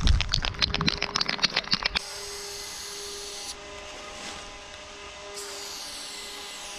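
A music track with a quick beat cuts off abruptly about two seconds in. After that an aerosol spray paint can hisses in two bursts with a pause between, as outline lines are sprayed.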